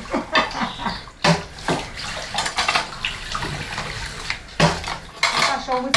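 Water running from a tap, with a few knocks and clinks.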